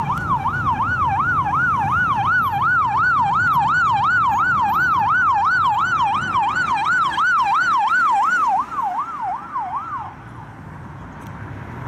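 Electronic yelp siren of a Hellenic Police Skoda Octavia, a rapid up-and-down wail about three times a second, over city traffic noise. It grows fainter about eight and a half seconds in as the car pulls away and stops about a second and a half later.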